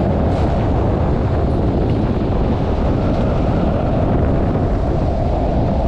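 Wind buffeting the camera microphone during a longboard ride, with the steady rolling of the board's 64 mm 80a urethane wheels on asphalt beneath it. The noise is steady and unbroken.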